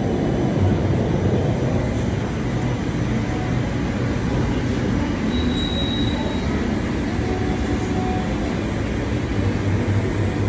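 Steady hiss and crackle of automated circumferential welding on a hydraulic cylinder, with a low electrical hum underneath, running without a break.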